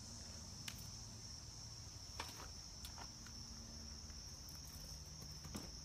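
Steady insect chorus, a continuous high-pitched buzz that does not let up. A few light clicks come through it as the tree is handled.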